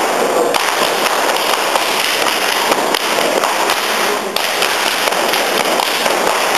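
Schuhplattler dancers slapping their hands against their thighs, lederhosen and shoe soles and stamping on the floor, a dense, fast clatter of slaps and thuds.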